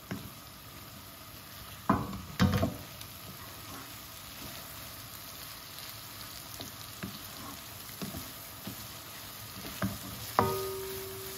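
Okra curry frying in a non-stick pan with a steady sizzle while being stirred with a wooden spatula. The spatula knocks against the pan twice about two seconds in, and once more near the end, where the pan rings briefly.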